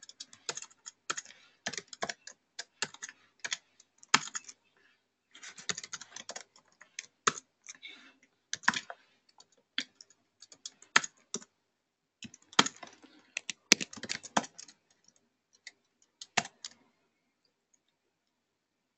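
Typing on a computer keyboard: bursts of quick keystrokes with short pauses in between, thinning out and stopping about seventeen seconds in.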